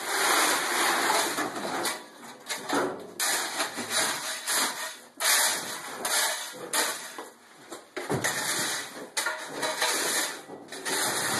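3/4-inch crushed stone being shovelled into a basement French drain trench, in repeated bursts of gravel pouring and rattling off a shovel blade, with the shovel scraping across the concrete floor as the stone is spread.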